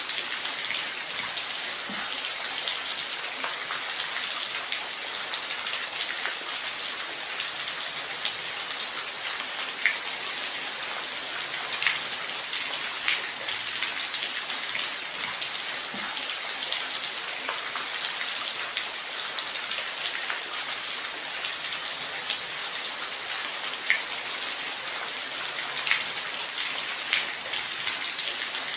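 Steady rain, an even hiss of many drops with individual louder drops ticking out now and then.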